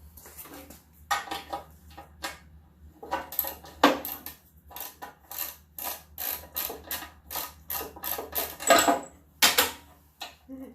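Irregular clicks and clatters of hand tools and small metal parts being handled while a lawn mower carburetor is reassembled, with the loudest knocks about four and nine seconds in.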